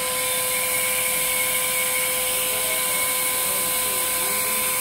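Hot-air welding machine's blower running with a steady whine over a constant rush of air, its heater on at about the 400-degree set temperature.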